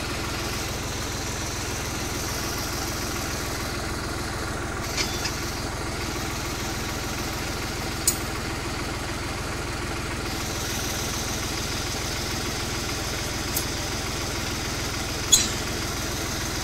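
New Holland tractor's diesel engine idling steadily, with a few sharp metal clinks as the drawbar is unpinned and lifted off the hitch links. The loudest clink comes near the end.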